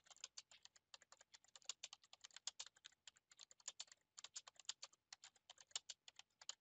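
Faint, rapid typing on a computer keyboard: quick runs of key clicks with a brief pause about four seconds in.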